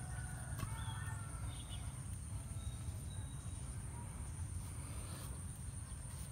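Outdoor ambience: a low steady rumble with a thin, steady high-pitched insect drone over it, and a few faint chirps in the first three seconds.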